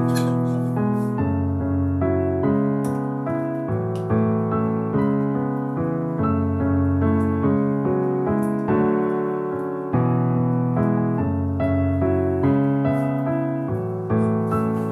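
Background piano music: notes and chords struck at an unhurried pace and left to ring.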